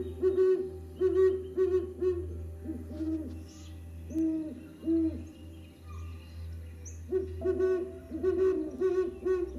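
Great horned owls hooting in runs of short, deep hoots. The hoots are loudest near the start and again over the last couple of seconds, with softer, spaced hoots in between.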